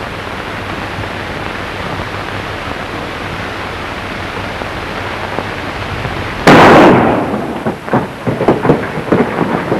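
Steady hiss of an old film soundtrack, then about six and a half seconds in a single loud gunshot that dies away over half a second, followed by a run of irregular short knocks.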